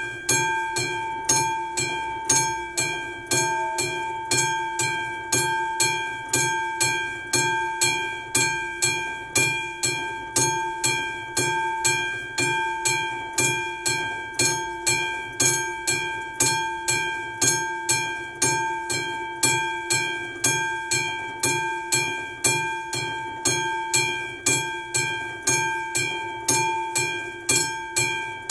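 Classic-type level-crossing warning bell ringing on an AŽD crossing: even strikes, about two a second, each ringing out before the next. It is sounding while the crossing is active, warning of an approaching train.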